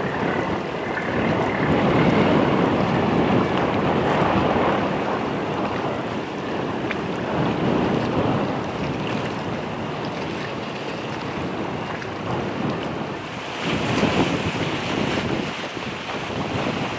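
Strong gusty wind rushing over the microphone, with choppy sea water beneath it; it swells in gusts, strongest about two seconds in and again near the end.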